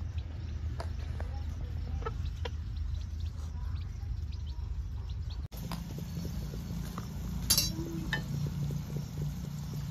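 A hen and her chicks clucking and peeping in short scattered calls as they peck at grain. About halfway through, the sound cuts to onions frying in a pan over a low steady hum, with a sharp clatter a couple of seconds later.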